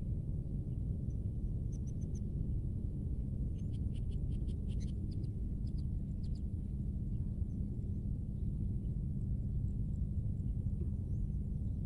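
Steady low outdoor rumble, with a faint run of quick high chirps from a small animal, about six a second, in the first half.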